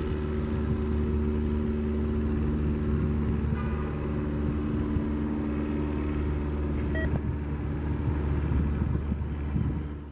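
Diesel-hauled commuter train running steadily as it pulls away: a low engine drone with several held tones. It fades out at the very end.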